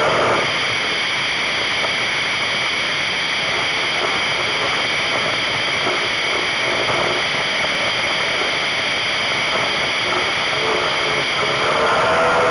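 Racing powerboat heard from on board: the engine's high whine drops back about half a second in, leaving a steady rush of water, spray and wind. Near the end the engine note comes back up, wavering in pitch.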